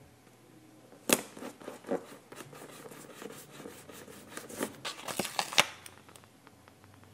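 Paper stickers being peeled, pressed and rubbed down on a paper page: a sharp crinkly crackle about a second in, a few softer ones after it, and a thicker run of crackles from about four and a half to five and a half seconds.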